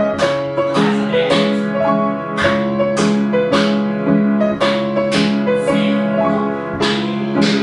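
Piano accompaniment playing a bouncy tune, with sharp hand claps keeping time roughly every half second.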